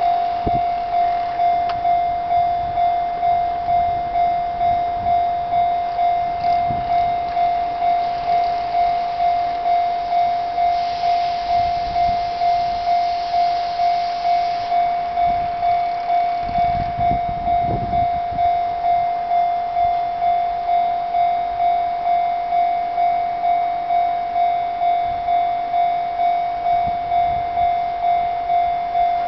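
Japanese level crossing warning bell ringing steadily, one repeated tone at about three strokes every two seconds, the signal that a train is approaching.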